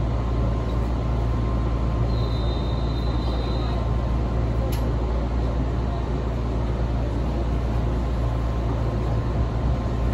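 Electric train running, heard from inside the passenger car: a steady low rumble and hiss with a thin constant tone. A faint high whine comes in about two seconds in and lasts under two seconds, and there is a single click near the middle.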